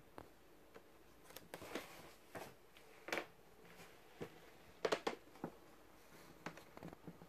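Faint, irregular taps and rustles close to the microphone: a cat's fur and paw brushing and tapping against the phone, loudest in a quick cluster about five seconds in.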